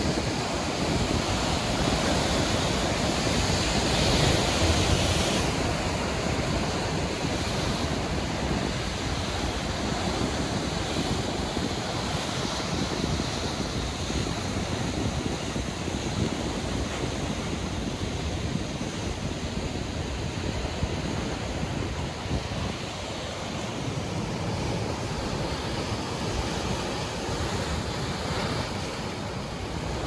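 Ocean waves breaking and washing up a beach: a continuous rush of surf that swells loudest about four seconds in, then settles into a steady wash.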